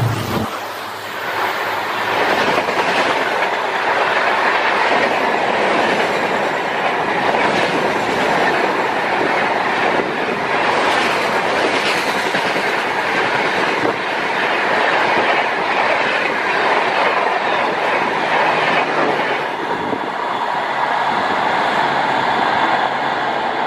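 Express passenger train's coaches rushing past at speed, wheels clattering over the rail joints in a steady clickety-clack. The low hum of the diesel locomotive cuts off right at the start, and the sound eases a little near the end as the last coach goes by.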